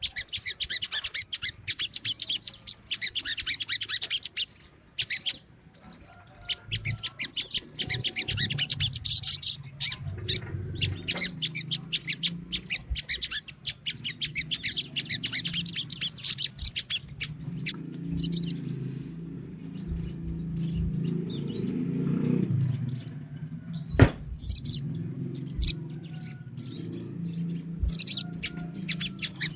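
Several crested jays (sogon) giving rapid, dry rattling chatter calls, overlapping almost without a break, with a low hum underneath and a single sharp click near the end.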